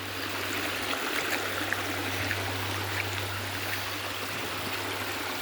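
Stream water running steadily over rocks, a continuous even rush.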